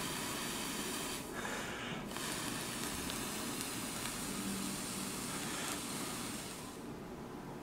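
Parallel Kanthal microcoils on a rebuildable atomizer being fired through e-liquid-soaked organic cotton: the liquid hisses and sizzles as it vaporizes on the coils. The hiss thins briefly between one and two seconds in and stops about seven seconds in. This is a break-in firing, run until the wick runs dry to burn off the cotton's own flavour.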